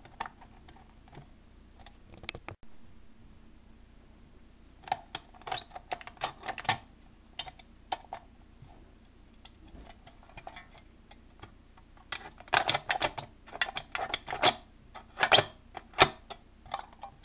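Thin aluminum soda can crackling and clicking as an X-Acto knife slices around its wall, in two spells of rapid sharp clicks: one about five seconds in and a longer, louder one in the second half.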